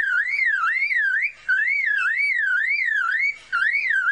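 Superb lyrebird mimicking a car alarm: a whistled tone that sweeps up and down about three times a second, in phrases broken by two brief pauses.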